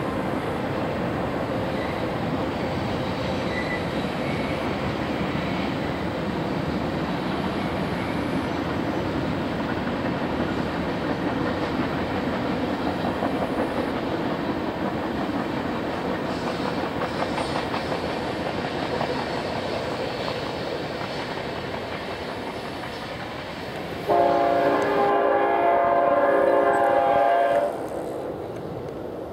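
Mixed freight train cars rolling past, a steady rumble of wheels on rail that slowly fades as the train clears. About 24 seconds in, a locomotive horn sounds one loud chord for about three and a half seconds, then cuts off.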